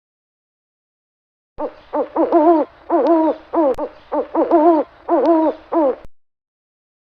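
Owl hooting: a rapid run of short, wavering hoots that starts about a second and a half in and stops about six seconds in.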